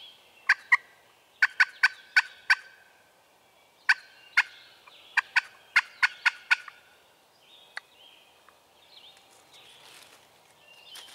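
Wild turkey clucking: about fifteen sharp, short notes in loose clusters over the first seven seconds, with softer drawn-out notes between them. After that it goes quieter.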